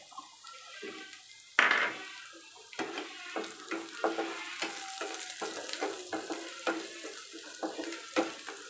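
Chopped onions and whole spices sizzling in oil in a non-stick pan. A sharp clatter comes about a second and a half in. After that, a wooden spatula knocks and scrapes against the pan many times as the mixture is stirred.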